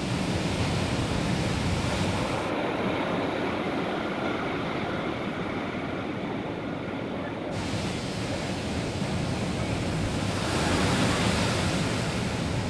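Ocean surf breaking and washing up a sand beach: a steady rushing noise that swells about ten seconds in as a larger wave breaks.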